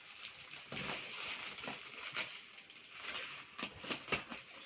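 Plastic wrapping and a taped cardboard parcel rustling and crinkling as they are handled, with a run of sharp crackles in the second half.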